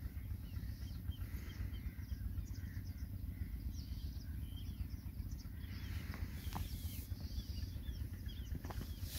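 Small birds chirping, with many short calls one after another, over a steady low rumble. A couple of faint knocks come near the end.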